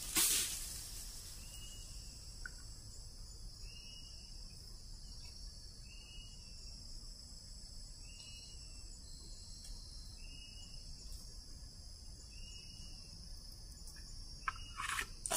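Forest insects drone steadily at a high pitch, with a short call repeating about every two seconds. A brief loud noise comes at the very start, and a few sharp clicks near the end.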